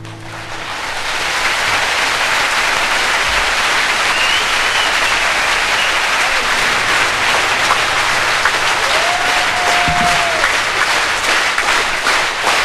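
Audience applauding at the end of a song, swelling over the first second or two and then holding steady.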